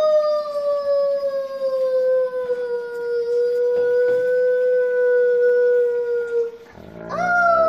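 Alaskan Malamute howling: one long, loud howl that sinks slowly in pitch and breaks off near the end, then a new howl starts just before the end.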